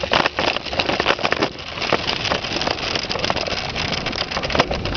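Bike moving fast over a dirt trail under dog power: steady tyre and wind noise with a dense clatter of rattles and knocks from the bike over the rough ground, heaviest in the first second and a half.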